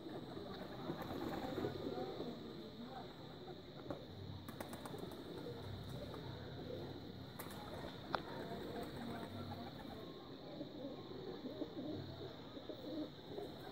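Domestic pigeons cooing faintly in soft, repeated low murmurs, with a steady high-pitched tone in the background and a few light clicks.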